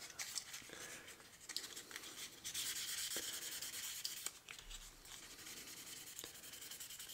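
Faint hand sanding: fine 2000-grit sandpaper rubbing on a freshly zinc-plated diecast car body, in short strokes that turn steadier for a couple of seconds midway.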